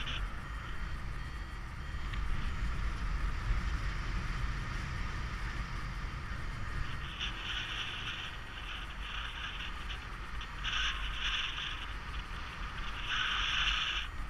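Wind rushing over the camera's microphone during paraglider flight, a steady low rumble, with intermittent higher-pitched bursts from about halfway on.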